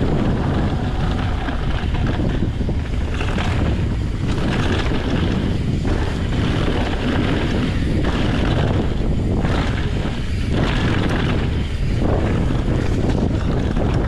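Wind rushing over the microphone of a mountain bike rider's camera on a fast downhill trail run: a loud, steady, rough rush heaviest in the low end.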